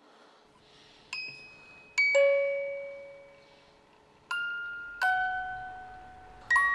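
Sparse music of single struck, bell-like notes, each ringing out and slowly fading, about six notes at uneven intervals.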